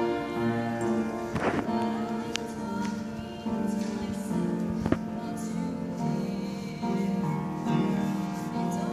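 Upright piano accompaniment with a girl singing solo over it. A sharp click sounds about five seconds in.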